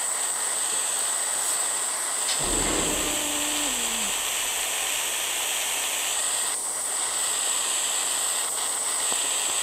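Small gas soldering torch flame hissing steadily as it heats a wire junction. A soft low thump comes about two and a half seconds in.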